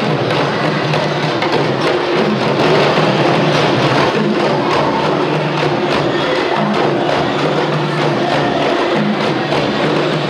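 Ensemble of djembes played by hand together, a loud, steady run of dense, overlapping strokes.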